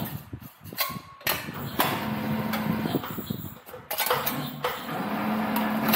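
Sheet-metal rounding machine running in two spells with a steady motor hum, the sheet metal clanking and rattling as it is fed through the rolls.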